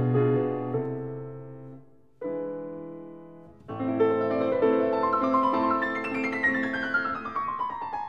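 Solo classical piano music. Held chords fade out, a new chord comes in about two seconds in and another near the middle, and then a run of notes falls in pitch near the end.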